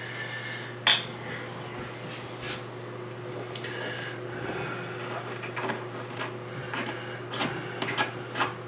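Small clicks and clinks of faucet cartridge parts being handled and fitted, with one sharp click about a second in and a busier run of taps near the end, over a steady low hum.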